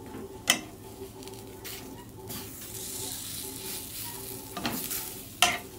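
A patishapta crepe sizzling in a nonstick frying pan while a spatula folds and rolls it, with scraping and two sharp taps of the spatula on the pan, one about half a second in and one near the end. A steady low hum runs underneath.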